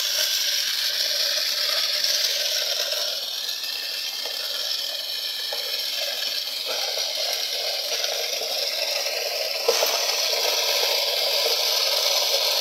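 Homemade belt-driven machine with a large spinning wheel running, a steady whirring rush, with one sharp knock about ten seconds in.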